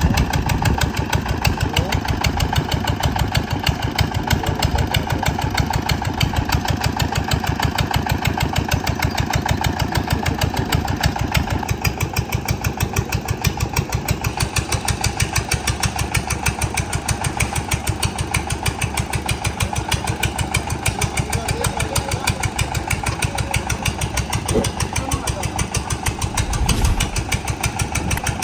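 An engine running steadily at a constant speed with a rapid, even pulse, swelling briefly near the end.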